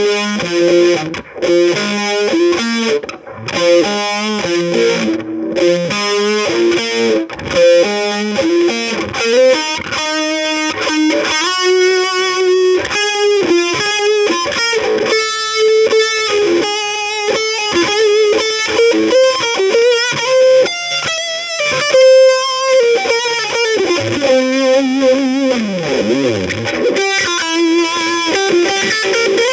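Instrumental music: an electric guitar with distortion and effects plays quick melodic runs of notes. Near the end, a note swoops down in pitch and back up.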